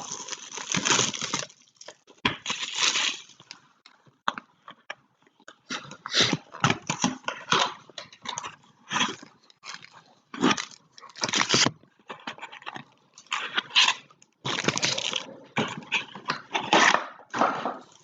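Plastic and cardboard packaging of a trading-card hobby box being torn and crinkled open: a run of short, irregular rustling and tearing bursts with brief gaps between them.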